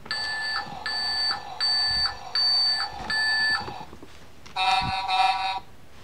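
Electronic sound chip of a Tonka construction-vehicle sound book playing a truck's reverse warning: five beeps about three-quarters of a second apart over a steady hum. Near the end comes a short, louder horn-like tone in two pulses.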